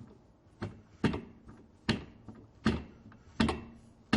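A series of sharp metallic clacks, about one every three-quarters of a second, from tool work fitting and tightening the center nut on an LG top-loading washing machine.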